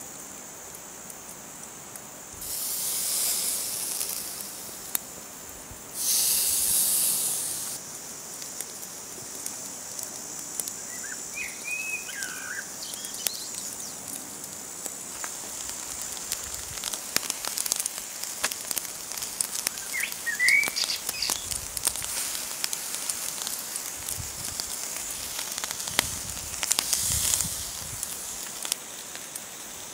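Steaks sizzling on a wire grill over hot charcoal, with steady crackling throughout. Three louder hissing bursts come as meat meets the hot grate: a couple of seconds in, again about six seconds in, and near the end.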